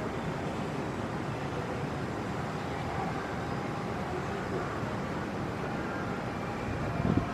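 Steady outdoor city ambience: an even wash of background noise, with a brief low thump near the end.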